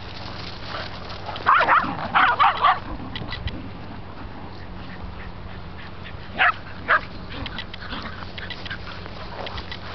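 Shetland sheepdogs barking: a quick run of about five sharp barks, then two more a few seconds later.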